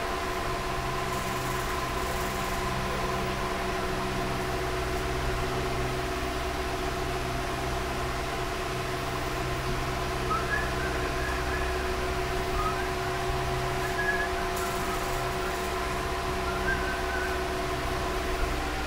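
Steady machine hum: a low drone with several fixed tones, with a few faint high chirps in the second half.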